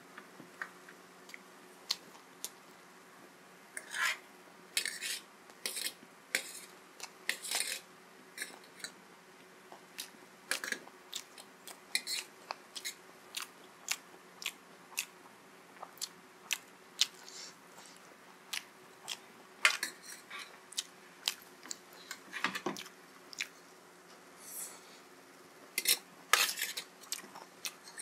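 Close-up eating sounds: chewing mouthfuls of chowmein noodles and momo dumplings, with a steel fork tapping and scraping on a steel plate in many short sharp clicks. A faint steady hum lies underneath.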